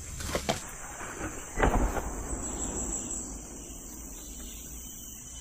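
Insects keeping up a steady high-pitched drone, broken by two sharp knocks near the start, the louder one about a second and a half in.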